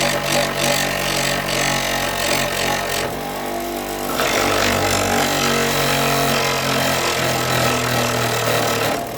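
Electric abrasive power tool running steadily while the wooden walking stick is pressed against it and ground down, hard enough to scorch the wood. The grinding lightens for about a second around three seconds in, then bites again, and eases off just before the end.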